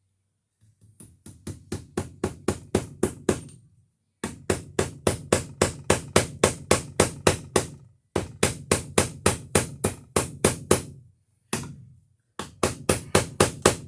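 Hammer driving a cable staple into a wooden wall stud, struck about four times a second in several runs that start soft and grow louder, with short pauses between; the staple is going into a hard knot in the wood.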